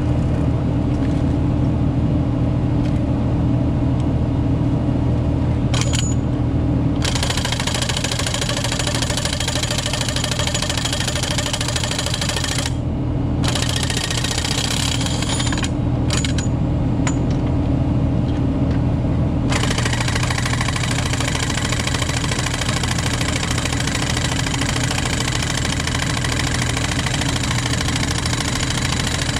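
Hydraulic impact wrench hammering on rail-joint track bolts in long bursts: from about 7 s to 12 s, twice briefly around 14 and 16 s, and again from about 19 s to the end. Under it the truck's engine drones steadily, driving the power-takeoff hydraulic pump that feeds the wrench.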